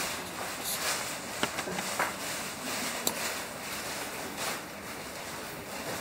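Large white sheet being swirled and flapped, giving an uneven rustling, swishing noise with a few sharp clicks.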